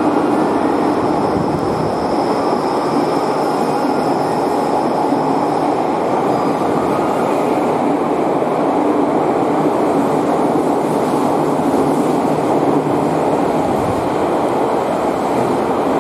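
Subway train running into an underground station platform: a loud, steady rumble of wheels and running gear echoing off the walls. A thin, high steady whine sounds over it from about one second in and lasts about four seconds.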